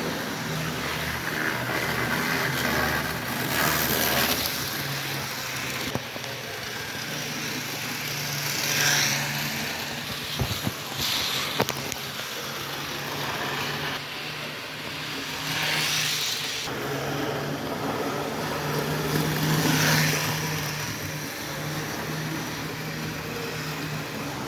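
Vintage model train locomotive's electric motor running loudly with a steady hum, its wheels rolling on the track. The noise swells and fades several times, with a few sharp clicks about ten to twelve seconds in.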